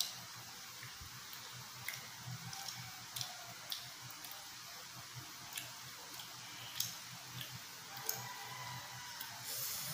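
Close-miked eating sounds of grilled T-bone steak: chewing and wet mouth clicks as meat is torn off the bone by hand and bitten, scattered irregularly. A short rustle near the end.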